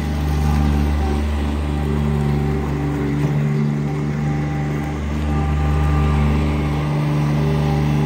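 Kubota D1005 three-cylinder diesel of a Bobcat 463 mini skid steer running steadily at a near-constant speed while the machine drives and turns.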